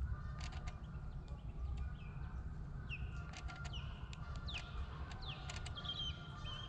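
North American ospreys calling: a series of sharp, downward-slurred whistled notes that come thicker and clearer from about three seconds in, over a low steady rumble. The calls belong to ospreys contesting the nest territory.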